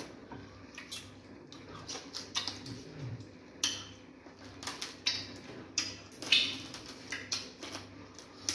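Close-up wet mouth sounds of eating fufu and banga soup by hand: irregular smacks, chewing and finger-licking clicks, with a few louder smacks scattered through.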